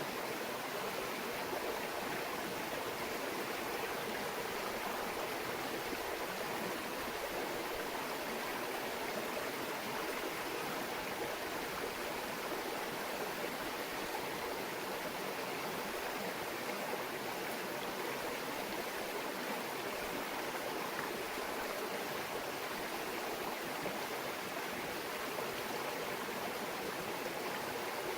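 Shallow stream babbling over stones, a steady, unbroken rush of water.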